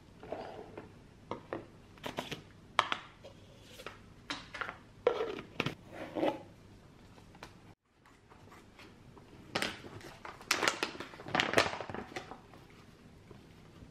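Plastic bottles and lids clicking and knocking on a countertop as they are handled. After a brief dropout about halfway, a plastic pouch of baking powder rustles and crinkles several times as it is picked up and opened.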